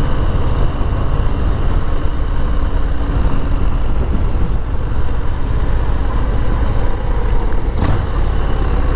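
Harley-Davidson Low Rider S V-twin engine and exhaust running steadily while the motorcycle is ridden, with a brief thump about eight seconds in.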